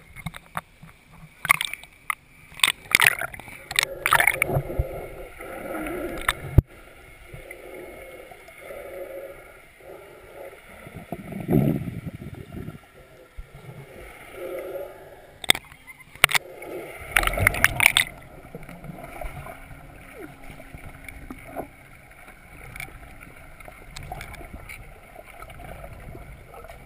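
Lake water splashing and sloshing over a GoPro in its waterproof housing as it bobs at the surface and then goes under, heard muffled with gurgling and bubbling between the splashes. The loudest bursts of splashing come a few seconds in and again past the middle.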